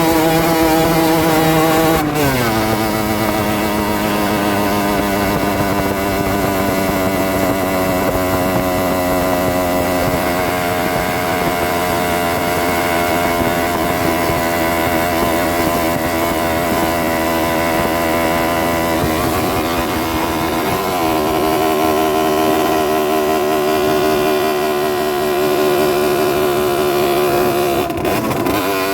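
Rieju Drac 50's 50 cc two-stroke engine running while the bike is ridden. The engine note drops about two seconds in and then holds fairly steady. It dips and picks up again about twenty seconds in, and drops once more near the end.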